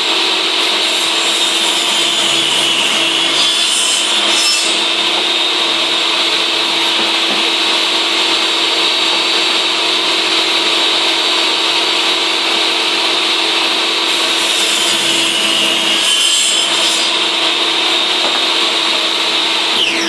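Electric saw running steadily and cutting timber, with two louder stretches of cutting through the wood, then winding down with a falling whine near the end.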